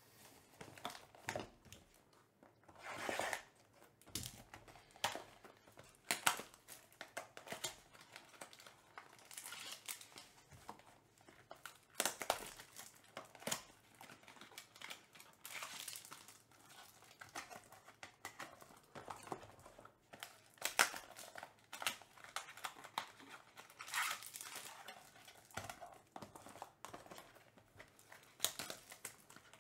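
Trading-card pack wrapping crinkling and tearing in irregular bursts as packs are opened and the cards handled.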